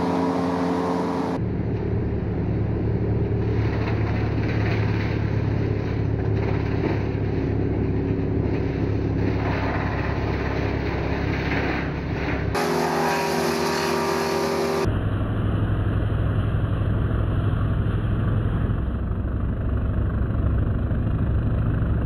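Brush chipper running steadily at working speed, its engine droning while it chews through branches and blows the chips into the truck; the sound changes abruptly a couple of times.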